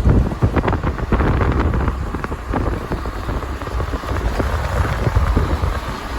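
Wind buffeting the microphone in irregular gusty thumps over the steady rumble of a car driving on the road.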